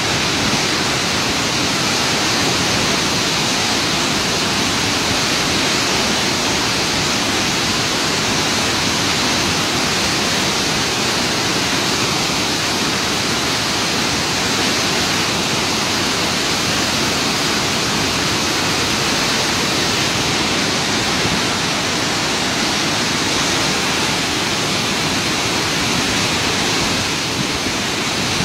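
Muddy floodwater rushing and churning in a swollen river in flash flood, a loud, steady noise that holds unchanged throughout.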